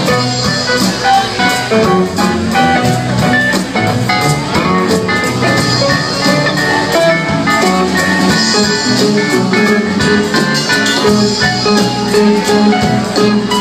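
Live rock band playing an instrumental passage, electric guitar over a steady drum beat.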